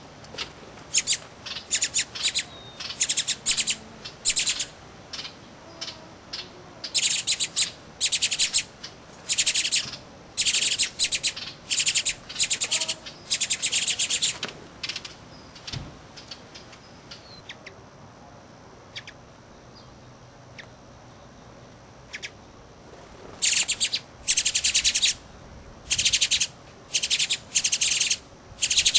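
Goldfinches at the nest chirping in repeated short, high-pitched bursts, in two spells with a quiet gap of several seconds between them.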